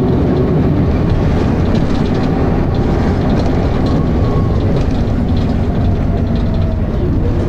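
Dennis Arrow double-decker bus's engine running hard while under way, heard from on board through a phone's microphone: a loud, rough, steady thrash with a faint rising whine in the second half. The bus has a slipping ZF automatic gearbox.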